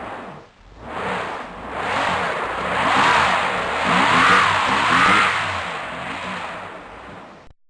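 Tractor engine revving up and down in repeated surges, its pitch swinging higher and lower several times before the sound cuts off abruptly near the end. This is typical of a tractor stuck in mud.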